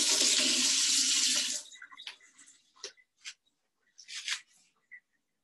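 Kitchen sink tap running into the basin, shut off about a second and a half in. A few light clicks and knocks of things being handled at the counter follow.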